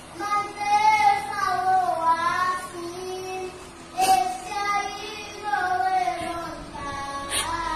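A young boy singing a Christian worship song, in sung phrases with short pauses between them.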